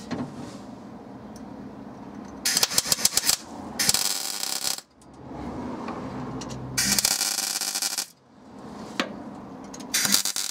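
Electric welder welding a steel patch disc into a hole in a car's body panel, in four crackling bursts of about a second each with short pauses between; the first burst comes as a quick run of separate cracks.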